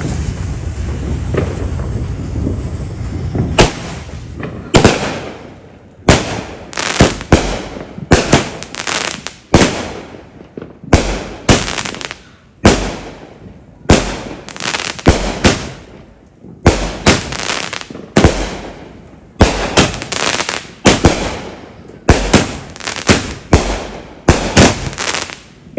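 Multi-shot consumer firework cake going off: a rapid series of sharp bangs and crackles, starting about three and a half seconds in and running on at one to three reports a second.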